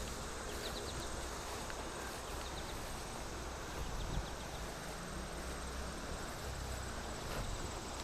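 Outdoor summer ambience: insects keep up a faint, steady high trill, with short high chirps coming in small groups of three or four. A low rumble lies underneath throughout.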